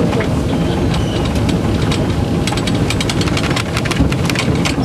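Mount Washington Cog Railway train climbing, heard on board: a steady low rumble with frequent irregular clanks and rattles.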